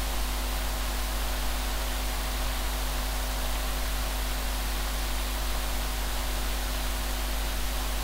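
Steady static hiss with a low, constant hum underneath, unchanging throughout; no other sound stands out.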